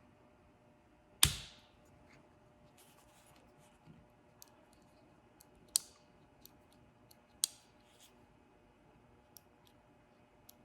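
Plastic clicks and snaps from a hazard-light switch assembly being pried apart by hand: one sharp snap about a second in, then a few lighter clicks spread out over the rest.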